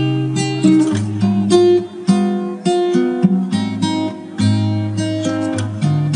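Background music on acoustic guitar, notes plucked and strummed one after another.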